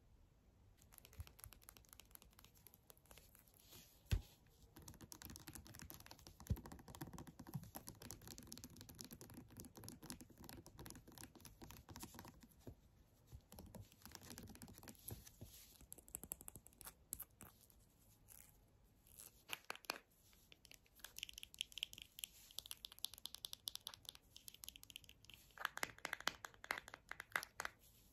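Quiet ASMR tapping and scratching: long fingernails clicking and scraping on a plastic squeeze tube and its cap, with soft rustling, a couple of sharp knocks a few seconds in, and a fast run of crisp taps near the end.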